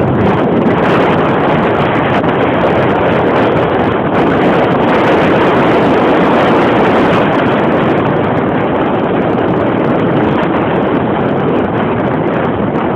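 Strong wind buffeting the microphone, a loud steady rushing noise with no break.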